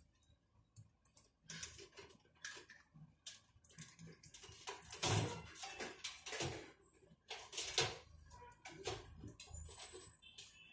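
Irregular clicks and knocks, a dozen or more scattered unevenly, some drawn out into short scratchy rasps.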